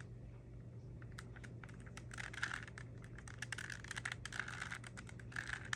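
A plastic Rubik's cube being turned by hand: quick runs of clicking and clacking as the layers are twisted one after another, starting about a second in and densest toward the end, as a turn sequence is repeated to insert an edge piece.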